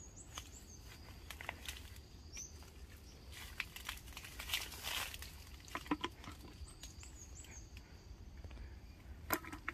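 Quiet outdoor creekside ambience: soft rustling and a few light clicks, thickest in a burst of rustling about halfway through, over a steady low rumble. Brief high chirps from a small bird come now and then.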